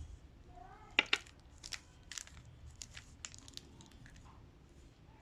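Rubik's cube layers being turned by hand: a quick, irregular series of plastic clicks and clacks, the two loudest about a second in.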